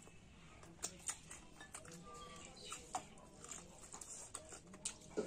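Close eating sounds: irregular wet clicks and smacks of chewing and lips while eating curry with rice, with sharper clicks about a second in, around three seconds in and one just before the end.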